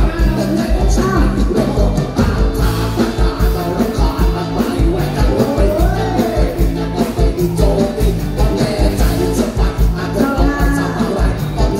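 A live band playing loud through a PA system: drums keep a steady beat under bass and a singing voice.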